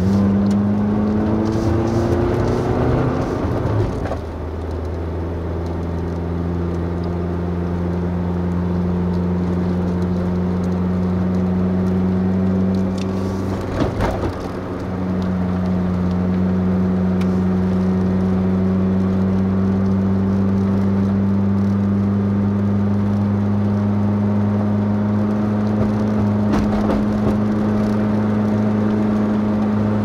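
Vehicle engine running steadily while climbing a mountain road. The revs rise over the first few seconds and drop about four seconds in, change briefly again around fourteen seconds, then hold an even drone.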